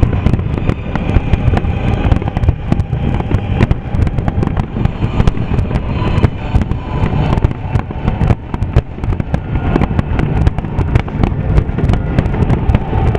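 Finale barrage of aerial firework shells: many bangs following one another so fast that they run together into a continuous rumble.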